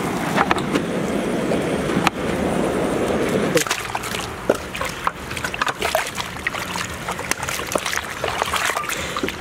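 Handheld gas torch burning with a steady low rush, cutting off about three and a half seconds in. Then raw chicken pieces sloshing and splashing in water as they are rinsed by hand in a kazan, with scattered clicks and knocks.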